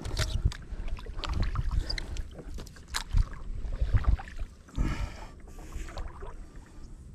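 Kayak being paddled with a broken paddle: irregular splashes and knocks against the hull, with a longer rush of water about five seconds in.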